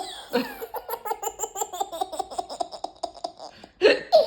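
Baby boy laughing at a pretend hiccup in a long run of quick giggles, several a second. Near the end comes a short, loud burst of voice.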